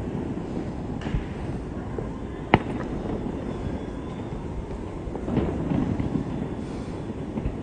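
Fireworks going off at a distance: scattered sharp bangs over a steady low rumble, the loudest about two and a half seconds in, then a quick run of smaller bangs a little past five seconds.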